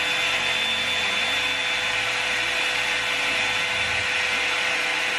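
Revlon One Step hot-air brush dryer running steadily and loud: a rush of blown air with a high motor whine and a lower hum underneath.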